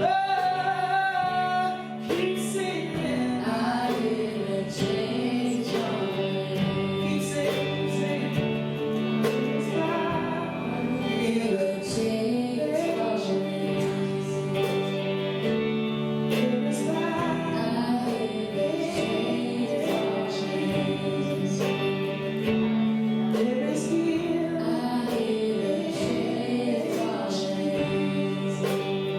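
Worship music: gospel-style singing with a woman's lead voice over guitar and a steady beat.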